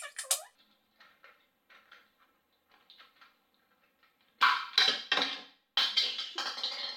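Faint clicks of small plastic doll pieces being handled, then about four and a half seconds in a loud plastic crackle and snap as an L.O.L. Surprise ball is pulled open. A girl's excited voice follows near the end.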